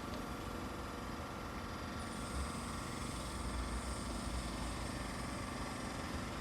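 Train running on rails: a steady rumble, with a faint high whine coming in about two seconds in.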